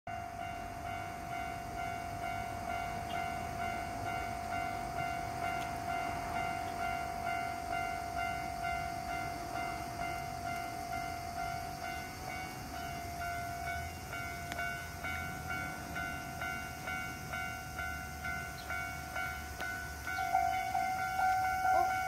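Japanese railway level-crossing warning bell ringing in a steady, evenly repeating ding, sounding while the barriers are down to warn of an approaching train. It grows louder about two seconds before the end.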